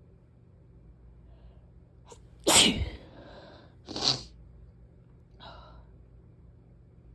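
A person sneezing twice, about a second and a half apart, the first sneeze the louder, with a fainter short breath-like sound a moment later.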